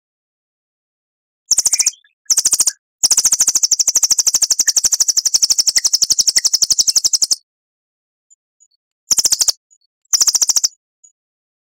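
A songbird's rapid, high-pitched trill of fast, evenly repeated notes. It comes in two short bursts, then a long run of about four seconds, then two more short bursts.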